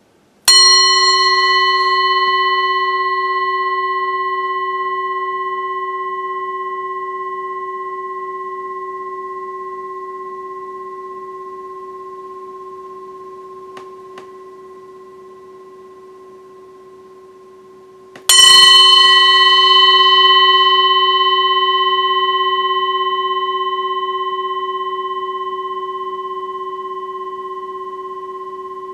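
Brass Tibetan singing bowl struck twice, about eighteen seconds apart. Each strike sets off a ringing tone with several higher overtones. The upper overtones die away first, leaving a low hum that fades slowly.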